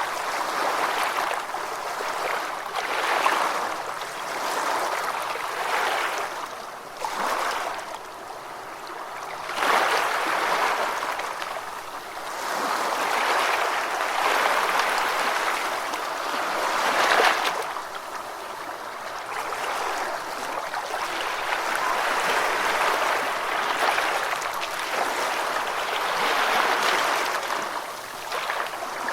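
Gentle ocean waves washing onto a beach, the hiss of surf swelling and easing back every few seconds.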